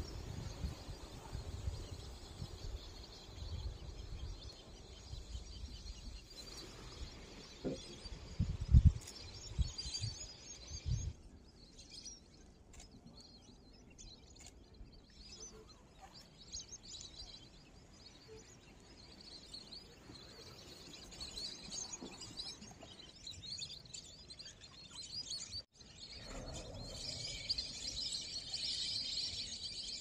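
Wild birds chirping and calling over a lily-covered wetland, with a low fluctuating rumble and a few thumps in the first ten seconds or so. Near the end, as a flock flies over, the calls become a dense, continuous chatter.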